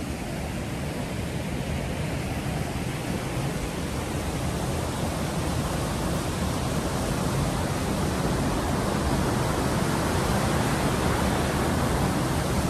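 Steady rushing of a river and waterfalls, an even hiss that grows slowly louder.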